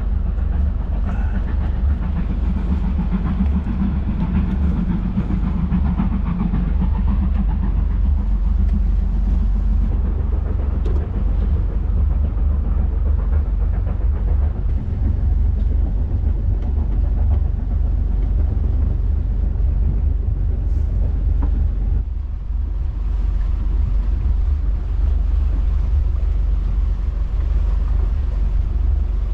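Motor cruiser's inboard engines running at low speed while underway, a steady low rumble, with wind rumbling on the microphone.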